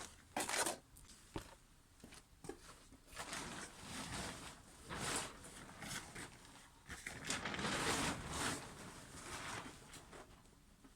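Rustling and clattering of things being handled, in irregular bursts with a few sharp knocks near the start.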